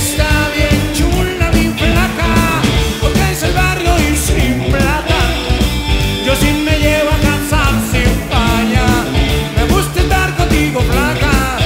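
Live rock band playing, with a man singing lead over electric guitar and drums.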